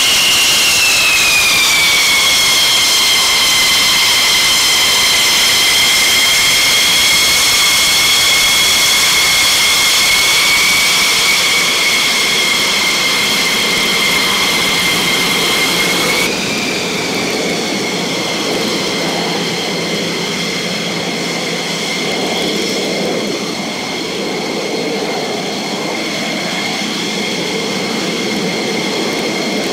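F-15E Strike Eagle jet engines running at ground idle: a loud, steady high-pitched whine over a rushing noise. The whine slides down in pitch during the first couple of seconds, then holds. About halfway through, the sound changes abruptly and the whine sits slightly lower.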